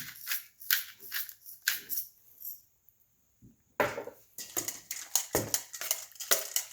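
Pepper grinder being turned over a bowl of chicken, crunching in quick, even strokes about three a second, with a pause of nearly two seconds partway through before the grinding resumes.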